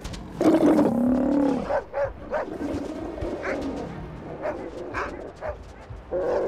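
Stray dogs barking in short, sharp bursts at South American sea lions; a sea lion answers with a deep, drawn-out bellow, falling in pitch, about half a second in.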